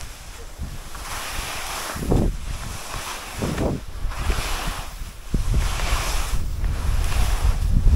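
Skis swishing through turns on spring corn snow, a hiss about once a second, over wind rumbling on the microphone that grows stronger about halfway through.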